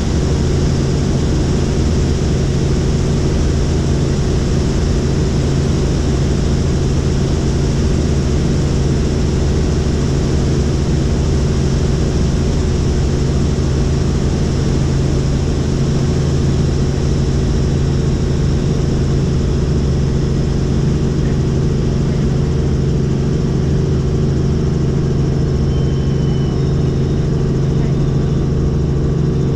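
Helicopter in steady flight heard from inside the cabin: a loud, constant engine and rotor drone with a deep, unchanging hum.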